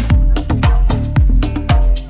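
Electronic dance music from a live set: a steady four-on-the-floor kick drum about two beats a second, with crisp hi-hat ticks and held synth tones.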